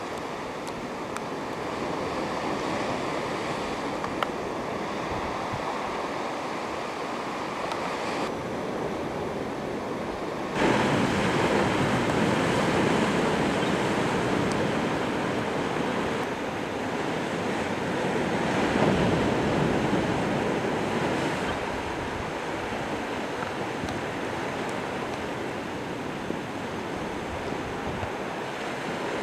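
Sea surf and wind, a steady rushing noise with no tones in it. It steps up suddenly about ten seconds in and eases back again later.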